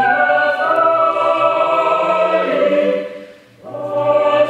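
Mixed choir singing held chords. The singing breaks off briefly about three seconds in, then comes back in.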